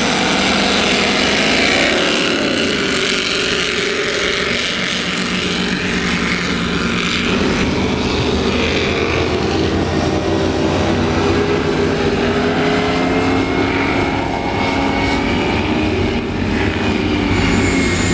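Offshore racing powerboats accelerating past one after another, their big marine engines running loud with pitch that rises and falls as each boat goes by, the sound changing about seven seconds in as the next boat takes over.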